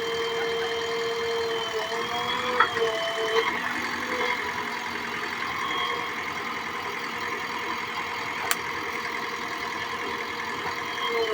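JCB backhoe loader's diesel engine running steadily, its pitch dipping briefly a few seconds in. Two short clicks, one early and one near the end.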